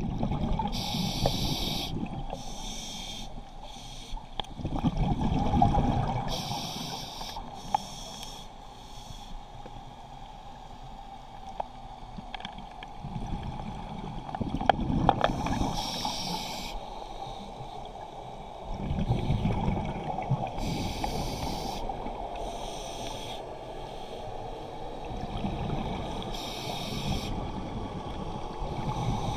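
Scuba diver breathing through a regulator underwater: several breaths, each a short hiss of inhaling followed by a longer rumble of exhaled bubbles.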